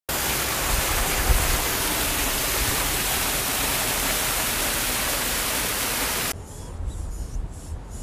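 Small waterfall splashing into a rock pool: a steady, loud rush of water that cuts off suddenly about six seconds in, leaving a much quieter faint hiss.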